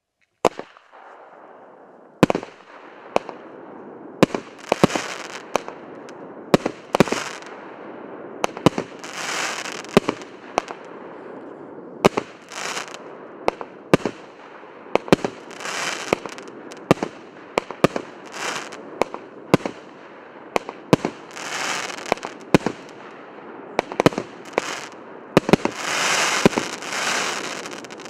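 One-inch, 19-shot consumer fireworks cake firing: a run of sharp bangs about once a second as the tubes launch and the shells burst, many followed by a brief hiss of crackle, with a longer, louder stretch of crackle near the end.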